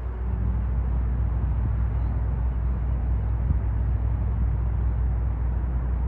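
Passenger ferry's engines running under way: a steady low drone with a faint hum in it.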